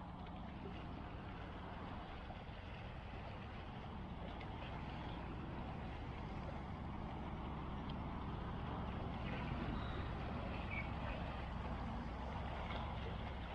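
Steady low rumble of a small fishing boat out on a lake, slowly growing a little louder, with a few faint ticks in the second half.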